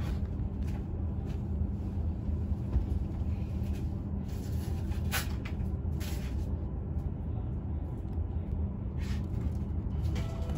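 Steady low hum inside a stationary H5 series shinkansen car waiting to depart, with a few brief rustles and clicks as a paper booklet is handled.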